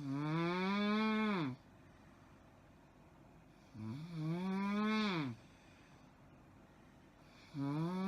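A woman snoring loudly, with a pitched, moaning tone. There are three long snores, each about a second and a half, at the start, about halfway and near the end, and each drops in pitch as it ends.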